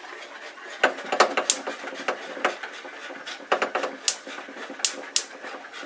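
Sharp, irregular clicks and knocks from working a gas stovetop to light a burner, spread through the whole stretch.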